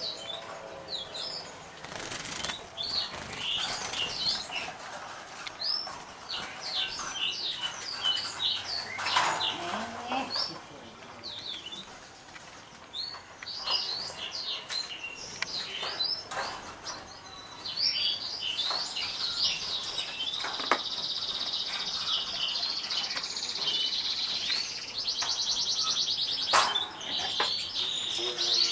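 Canary singing: quick high chirps and short phrases, then a long, rapid trill that starts about two-thirds of the way in and lasts about ten seconds. A few sharp clicks fall in between.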